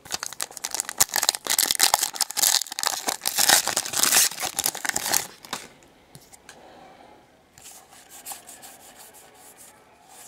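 Plastic foil wrapper of a Donruss football card pack being torn open and crinkled for about five seconds, then softer rustling and clicking as the cards are handled and fanned.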